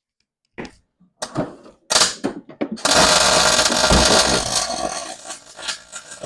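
A few sharp clicks and knocks, then from about three seconds in a loud, steady crackle of a MIG (wire-feed) welder laying a tack weld on steel, lasting about three seconds and thinning out near the end.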